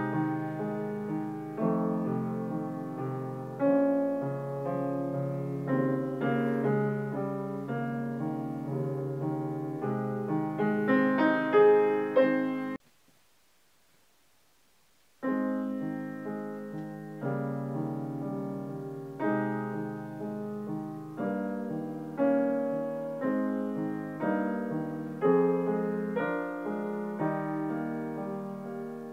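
Grand piano playing a passage of chords and running notes. The sound cuts off suddenly about 13 seconds in, and after a little over two seconds of silence the playing starts again.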